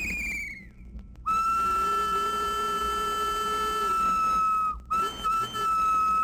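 A train whistle blowing two long, steady blasts, the first lasting about three and a half seconds and the second starting after a brief break about five seconds in.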